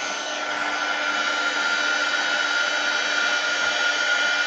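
Craft heat tool blowing hot air to dry wet Distress Oxide ink on a card: a steady fan whir with a high steady whine, growing a little louder in the first second.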